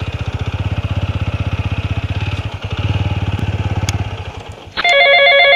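TVS Apache RTR motorcycle's single-cylinder engine idling with a fast, even beat, then stopping a little after four seconds in. Right after, a mobile phone ringtone starts: a loud run of quickly alternating electronic notes.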